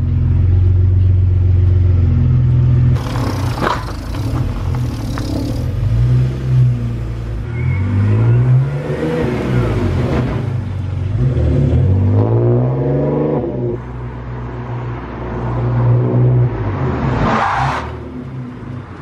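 BMW E46 323ci's 2.5-litre straight-six engine driving on the road, its pitch rising and falling several times as it accelerates and slows. Short bursts of rushing noise come about three seconds in and again near the end.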